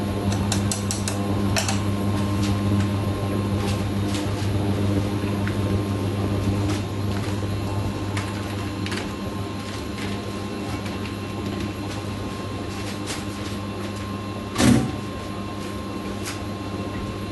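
A steady low hum with scattered light clicks and knocks from things being handled in a kitchen, and one louder knock about fifteen seconds in.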